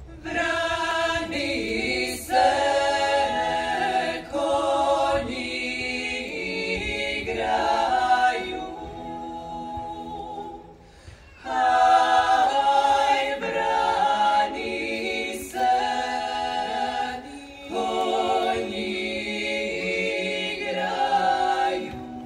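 Female klapa ensemble of six voices singing a cappella in close multi-part Dalmatian harmony. It comes in two long phrases, with a short breath pause about eleven seconds in.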